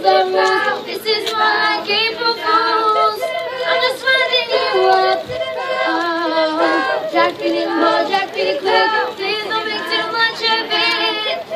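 All-female a cappella group singing, several voices in harmony under a lead singer on a microphone, with no instruments.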